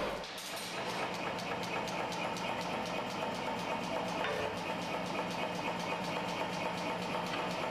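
A machine running steadily with a fast, even ticking over its hum, as hot iron is worked at the forge.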